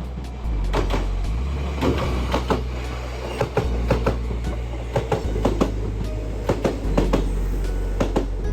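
Kintetsu Minami-Osaka Line electric train passing, its wheels clacking over rail joints in repeated close pairs, over background music.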